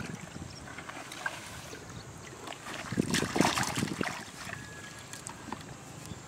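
Canal water splashing and sloshing as a plastic basin is dipped in and filled, with a louder stretch of splashing about three seconds in.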